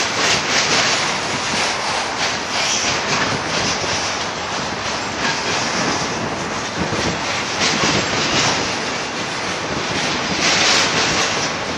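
Double-stack intermodal container cars of a BNSF freight train rolling past, descending a grade: a steady, loud rumble and hiss of steel wheels on the rails.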